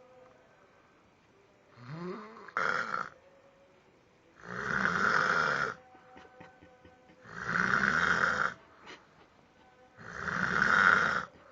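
Heavy snoring: three long, loud snores, each over a second, about three seconds apart. A shorter snore with a rising pitch comes about two seconds in.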